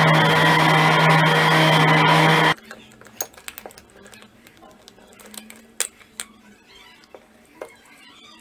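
A power saw running steadily with a whine while cutting PVC sheet, cutting off suddenly about two and a half seconds in. After that come faint scattered plastic clicks and taps as a quartz clock movement is handled.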